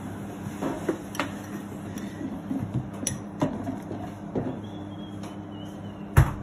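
Metal spoon clinking against a glass jar and ceramic dishes as sun-dried tomatoes are scooped out, in scattered light clinks over a steady hum. A louder knock comes near the end.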